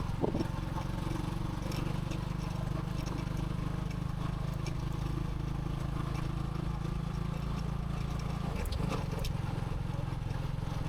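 Bajaj V15 motorcycle's single-cylinder engine running steadily while the bike is ridden, with a brief dip about nine seconds in.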